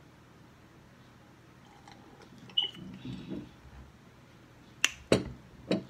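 Sipping an iced drink through a plastic straw, then the plastic cup of ice being handled and set down. There is a sharp click about two and a half seconds in and three sharp knocks near the end.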